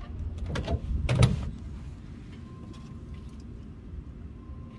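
A few knocks and clicks from handling the oil-sampling tube and bottle at the oil pan. They sound over a steady low rumble.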